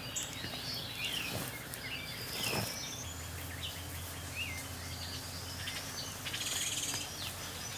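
Small birds chirping with many short rising and falling calls over a steady outdoor background. A low steady hum comes in about three seconds in.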